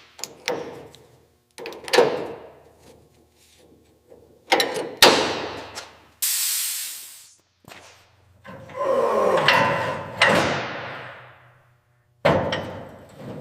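A string of separate metal clunks, knocks and scrapes from hand tools and bolts being worked out of a VW Beetle's air-cooled flat-four engine. There is a short hiss about six seconds in, and a longer ringing clatter a couple of seconds later.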